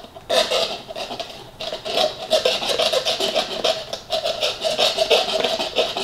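Plastic straw churned up and down through the domed lid of a frozen strawberry lemonade, rubbing on the lid and stirring the slushy ice in quick repeated strokes with a squeaky, pitched rub.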